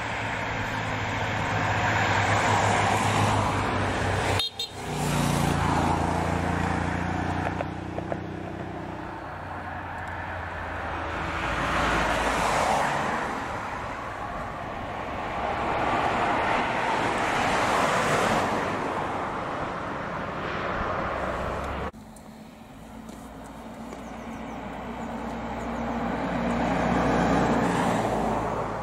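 Road traffic: several vehicles pass one after another, each swelling and then fading. The sound breaks off abruptly twice.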